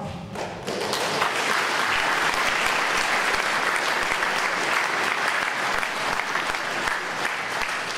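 A large audience applauding: dense, steady clapping that starts about half a second in and thins slightly near the end.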